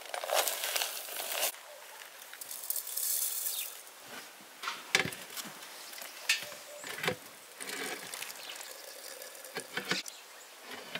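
Dry loose tea rustling and pattering as it is shaken from a paper packet into a porcelain teapot, with a few sharp clicks and knocks as the teapot and the brass samovar's tap are handled.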